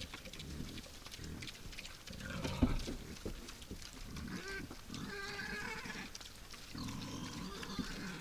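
Wild boars grunting, with higher-pitched calls in the middle and near the end, and a sharp knock about two and a half seconds in.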